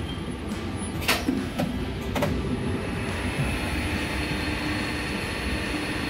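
Mitsubishi lift hoist machine running during a test run: a steady low rumble, two sharp clicks about one and two seconds in, then a steady high whine from about three seconds in. The lift is running smoothly after work on its rotary encoder.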